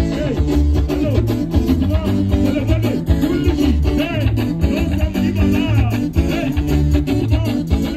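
Live band playing upbeat dance music through the hall's loudspeakers: bass and electric guitar over keyboard and drums at a steady beat, with a man singing into a microphone.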